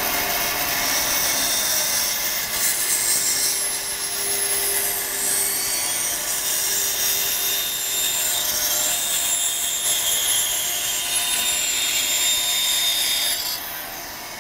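Band saw cutting a curve through a thin plywood pattern piece, a steady saw-and-motor noise; near the end the cut finishes and the noise drops to the quieter sound of the saw running free.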